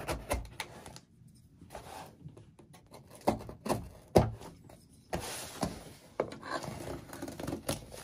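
Small folding knife slitting the packing tape on a cardboard shipping box, with scratchy cutting strokes. Several sharp knocks sound as the box is handled on a wooden tabletop, the loudest a little past the middle.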